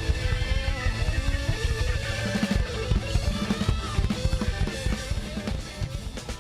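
Full band playing rock music: a drum kit with a fast, driving kick-drum beat and snare under electric guitar, getting quieter near the end.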